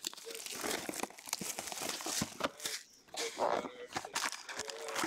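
Rustling, crinkling and tearing of plastic and foil wrapping as a box of trading card packs is opened and handled, with small clicks and taps between.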